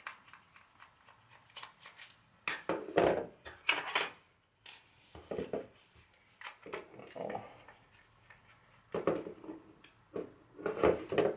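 Phillips screwdriver taking small screws out of a plastic walkie-talkie case: scattered clicks and clatters of metal on plastic as the radio and tool are handled, loudest a few seconds in and again near the end.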